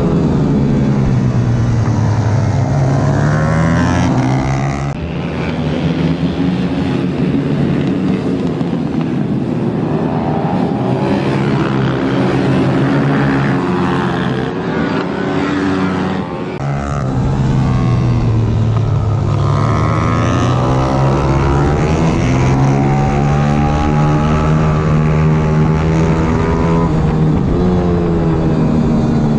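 Pit bike engines at racing revs. The pitch climbs as the bike accelerates through the gears and drops back for the corners, over and over. For a stretch in the middle several bikes are heard passing together.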